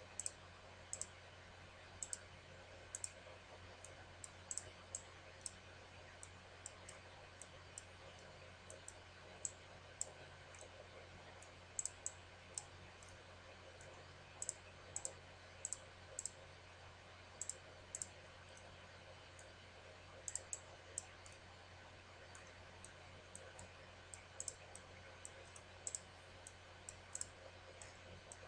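Computer mouse buttons clicking: sharp single clicks and quick double-clicks at irregular intervals, over a faint steady hum.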